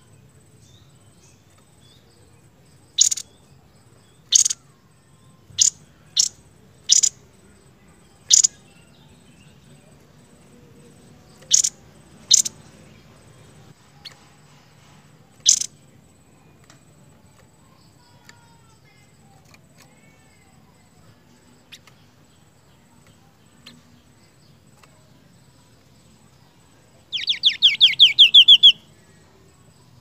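Seniper songbird calling. It gives a series of single sharp, short chip notes, about nine spread over the first half. Near the end comes a fast trill of about ten notes that grows louder over a second and a half.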